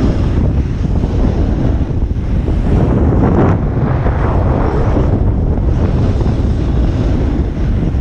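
Wind buffeting the microphone of a camera carried at speed down a groomed ski slope: a loud, continuous, rumbling rush that swells and dips a little.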